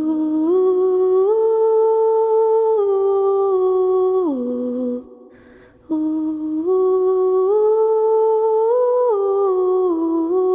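A woman's wordless humming melody of long held notes that step up in pitch and then back down. It comes in two phrases, with a brief break about five seconds in.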